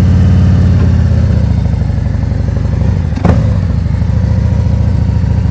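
Large touring motorcycle engine running at low speed and light throttle through a tight U-turn, a steady low rumble. A single sharp click sounds about three seconds in.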